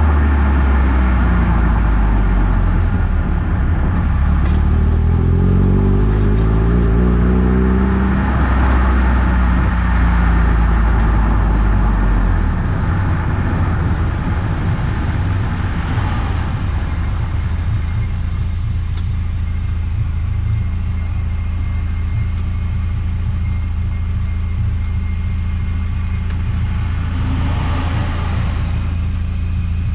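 Eunos Roadster driving, its inline-four engine and road noise heard together. The engine's pitch climbs during the first several seconds, then settles to a steadier, lighter run.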